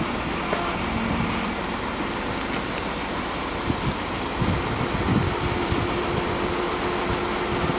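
Heavy-vehicle engine running steadily, with a few low thumps in the middle.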